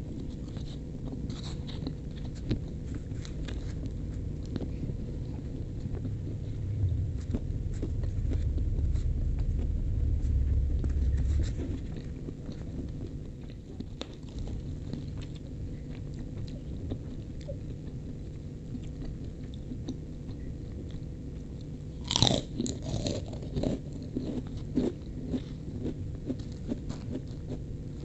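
Close-up eating sounds: a metal spoon clicking and scraping against styrofoam boxes, and chewing of fried rice with chicken liver and gizzard. A low rumble runs for about five seconds, and a louder cluster of crunching clicks comes about twenty-two seconds in.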